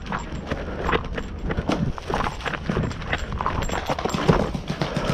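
Hurried footsteps of a player running over rough ground, a quick uneven series of thuds and crunches.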